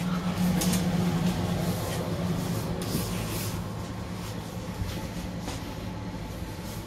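Steady electrical hum and rumble inside the passenger saloon of an NMBS MS75 electric multiple unit, with a few short hisses. Slightly louder in the first two seconds.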